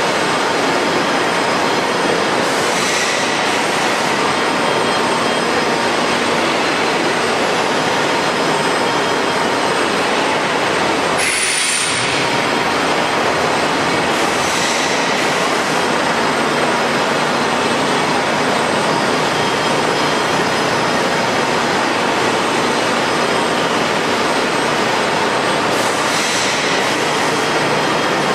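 ERW welded-pipe tube mill running: a steady, loud industrial noise with faint high steady tones, and a few brief hissing surges, one with a short falling whistle about halfway through.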